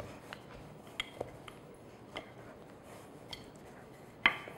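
Wooden rolling pin rolling laminated croissant dough on a granite counter: a quiet rolling sound with a few scattered light clicks and knocks, the sharpest near the end.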